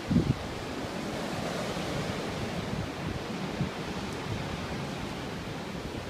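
Strong wind blowing steadily through garden trees in a gale, with a few low thumps of wind buffeting the microphone just after the start.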